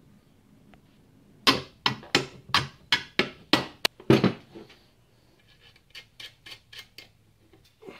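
About nine sharp metal-on-metal knocks in quick succession, roughly three a second, as a cast-iron lathe motor mount is handled and fitted onto the lathe. Near the end come five lighter clicks.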